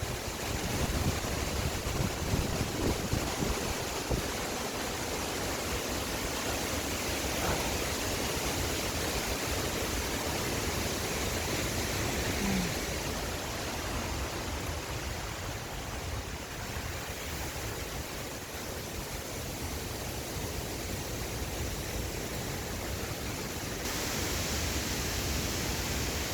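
Very heavy wind blowing through tall trees as a steady rushing noise, with gusts buffeting the microphone in the first few seconds.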